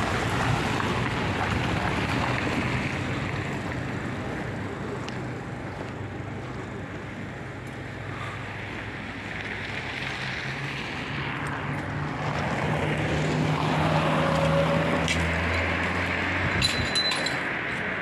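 Street traffic: passing car engines over a steady street hum, with a low engine drone swelling past about halfway through and fading shortly before the end. A few sharp clicks come near the end.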